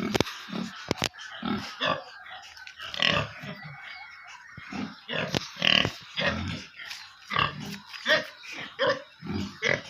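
Pigs in a pen calling, a run of short, irregular grunts and sharper squeal-like calls in quick succession.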